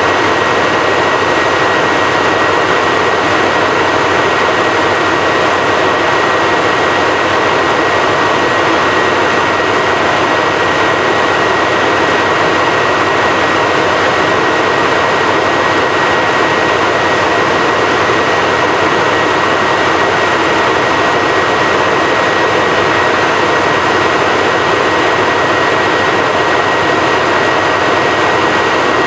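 Red JR Freight DF200 diesel-electric locomotive idling at a standstill: a steady, loud engine and cooling-fan drone with a thin, steady high whine over it.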